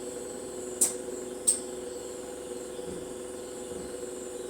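Alexander Dennis Enviro400 hybrid double-decker bus heard from inside: a steady hum at two pitches with a faint high whine over it, the weird noise these hybrid buses have started to make. Two sharp clicks come about a second in and again half a second later.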